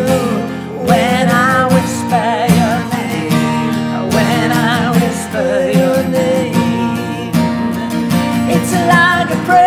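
Acoustic guitar strummed under a man and a woman singing together in harmony, the sung notes wavering with vibrato.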